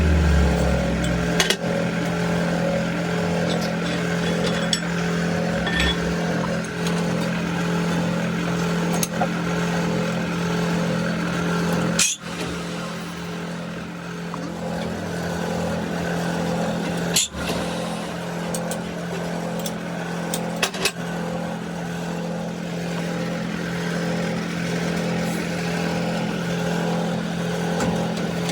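An engine or machine running steadily with a constant even hum, broken by a few brief sharp clicks or dropouts.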